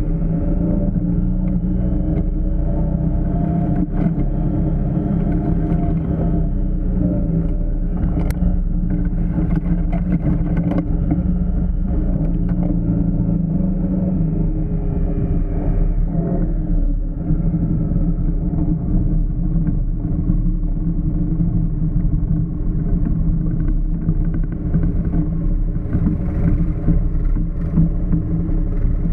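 Off-road side-by-side or ATV engine running at a steady pace on the trail, a continuous low drone whose pitch shifts only slightly. There is a single sharp click about eight seconds in.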